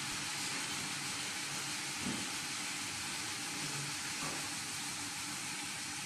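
Automatic screen rinsing machine spraying water onto a screen-printing screen inside its cabinet: a steady hiss of water jets.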